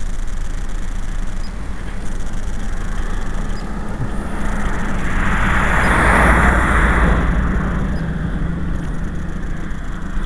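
A vehicle passing on the road, its noise rising, peaking about midway and fading over about four seconds, over a steady low hum.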